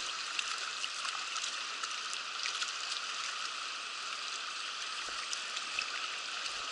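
Mountain stream water rushing steadily over rocks, an even hiss with a few faint ticks scattered through it.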